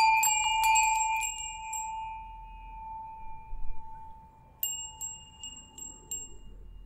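Metal chimes ringing: a clear struck note that rings on and fades slowly, with quick light strikes over it at first, then another run of light strikes about halfway through.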